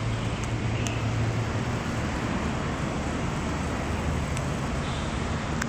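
Steady rumble of distant road traffic with a low hum underneath, and a few faint clicks.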